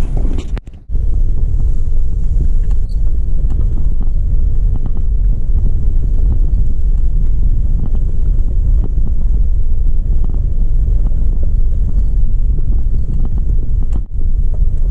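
Steady low rumble of a car heard from inside its cabin, with two brief dropouts, one about a second in and one near the end.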